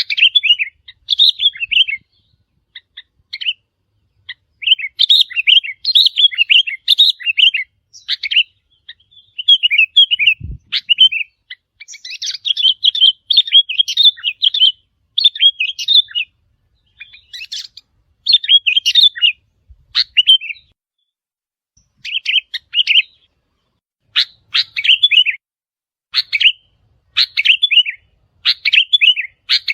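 Sooty-headed bulbul song: short, chirpy, warbling phrases repeated in quick bursts with brief pauses between them.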